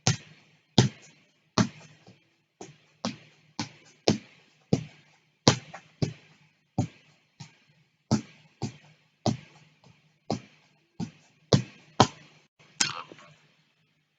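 A soccer ball being juggled: a long run of sharp thuds as it is kicked up again and again, about two touches a second, over a faint low hum.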